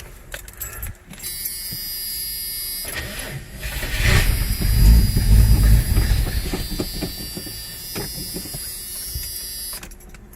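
1982 Ford Granada's straight-six being cranked on the starter. It fires and runs briefly on starter fluid for about two seconds in the middle, then dies: it will run on the fluid but not on its own fuel supply.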